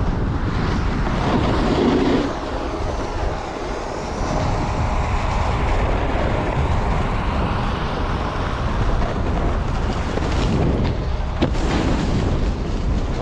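Strong gusting wind buffeting the microphone: a loud, continuous rush with heavy low rumble, dipping slightly about two seconds in.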